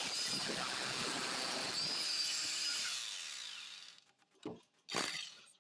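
Power tool cutting into the wall at its steel reinforcement, running steadily with a high whine, then winding down about three to four seconds in. Two short knocks follow near the end.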